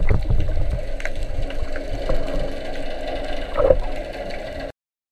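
Sea water sloshing and splashing at the surface, heard through a camera half in the water, with a few knocks; it cuts off suddenly near the end.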